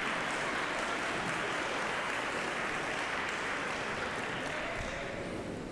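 Large audience applauding: a steady wash of many hands clapping that eases off slightly near the end.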